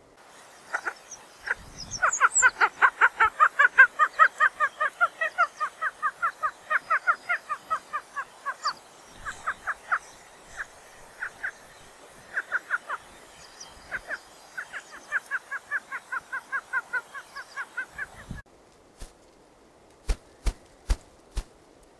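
A grouse calling in a fast run of short, repeated notes, about five a second, in two long bouts with scattered notes between; the calling stops abruptly. Near the end a few sharp knocks follow at a slow, even beat.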